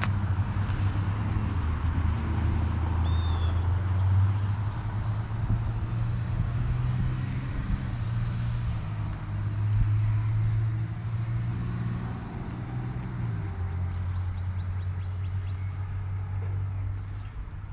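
A vehicle engine running steadily, a low hum that drops slightly in pitch and level about thirteen seconds in. A bird chirps once about three seconds in.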